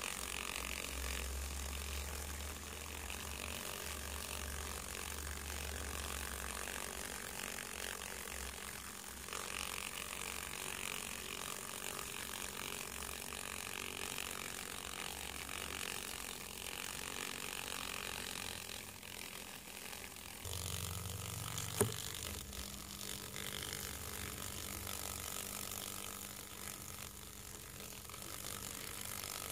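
Male domestic silkworm moth fluttering its wings rapidly as it courts a female, a faint rattling whirr over a low steady hum. A single sharp click about 22 seconds in.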